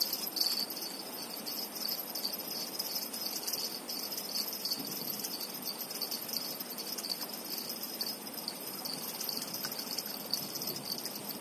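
Steady high-pitched insect chorus, a fine continuous trilling typical of crickets, over a low, even background hiss.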